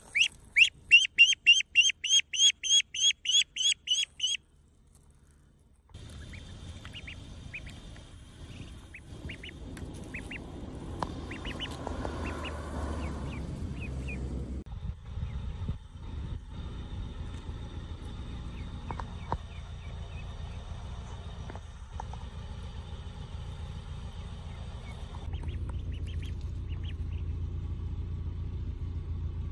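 Domestic duckling peeping close up: a quick run of about a dozen loud, high-pitched peeps, roughly three a second, over the first four seconds. After a short pause, softer scattered peeps over a low rumble, with a brief flurry of wing-flapping around the middle.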